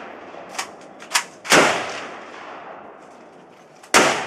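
Saiga AK-pattern semi-automatic rifle firing: two loud shots about two and a half seconds apart, each ringing out briefly. Two fainter, sharp cracks come earlier, about a second in.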